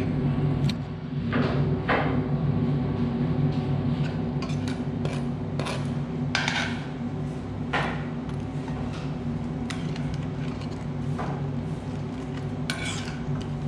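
Scattered clinks of dishes and cutlery, a dozen or so sharp taps, over a steady low hum.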